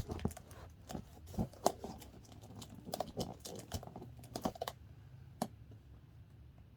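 Irregular clicks, taps and light crinkles of hands working at a package to open it, busiest for the first four or five seconds, then one last tap and little else.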